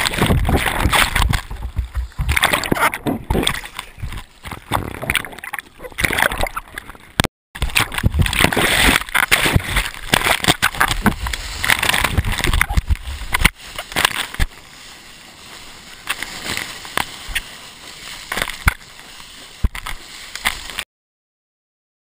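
Seawater sloshing and splashing over a wrist-mounted GoPro in the surf, a loud uneven churn with many sharp splashes. It drops out briefly about seven seconds in, turns quieter about two-thirds of the way through, and cuts off near the end.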